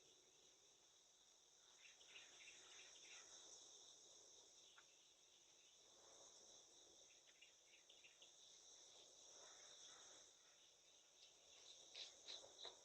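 Faint, steady insect chorus, a continuous high-pitched trilling. Scattered short chirps come over it, with a louder cluster of quick chirps near the end.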